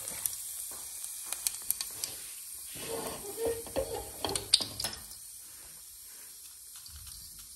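Cumin seeds sizzling in hot oil in a pan: a steady hiss with scattered sharp crackles and pops, the loudest about halfway through, fading over the last couple of seconds.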